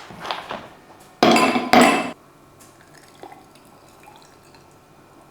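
Ice cubes dropped into a glass of watermelon juice, clinking against the glass and splashing, with two loud clatters a little over a second in, then a few faint ticks.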